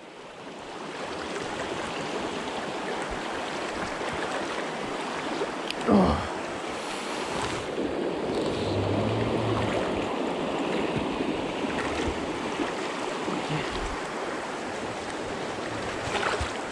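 A fast river current rushing and splashing over rocks, heard close to the microphone as a steady wash of water noise. About six seconds in, a brief, louder sound slides down in pitch.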